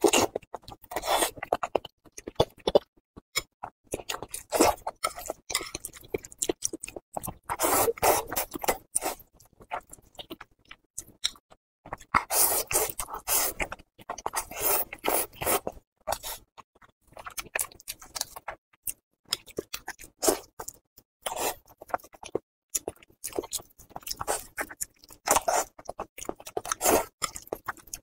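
Close-miked eating: slurping spicy fire-chicken instant noodles and chewing, in irregular bursts with short pauses.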